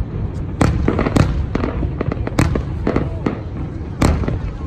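New Year aerial fireworks going off: an irregular string of sharp bangs, four of them loudest, over a steady low rumble.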